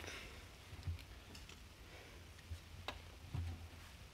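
Faint handling noise: a few scattered light clicks and soft knocks as hands grip and turn a Play-Doh shark model.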